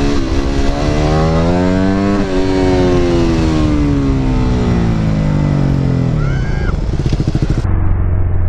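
Supermoto motorcycle engine revving up for about two seconds, then its pitch falls slowly over the next few seconds as the throttle comes off, with a steady rush of wind and road noise. Near the end the sound turns muffled, leaving a low drone.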